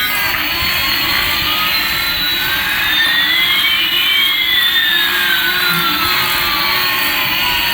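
Jet-engine sound: a steady rushing whoosh with two whistling tones, one rising and one falling, that cross about halfway through, over a wavering low hum. It starts and stops abruptly.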